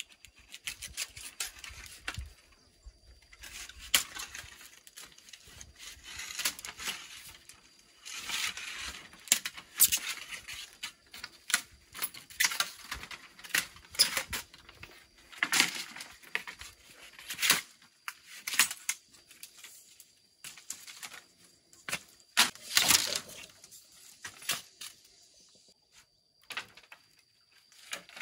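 Large knife chopping and splitting bamboo: irregular sharp cracks and chops, with the blade rasping along the pole as the split bamboo tears apart.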